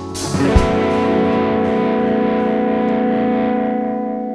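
A rock band's closing chord: a drum and cymbal hit about half a second in, then distorted electric guitars and keyboard let one chord ring out, slowly fading.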